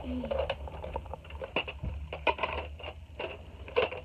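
Plastic parts of a Nerf Tri-Strike blaster being handled and fitted together: a string of irregular clicks and knocks, with no steady rhythm.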